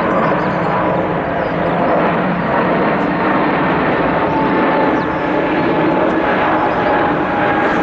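Jet airliner engines running loud and steady, a broad rush with a faint whine that slowly falls in pitch.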